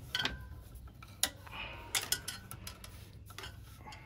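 Hands handling parts on top of a car engine, making scattered light clicks and taps, with a few sharper clicks about a quarter second in, just after a second, and near two seconds.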